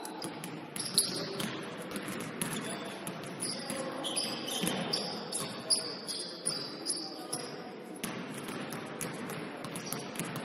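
Basketball game in play: a ball bouncing on the court with repeated sharp knocks, and sneakers squeaking in short high chirps, over players' voices.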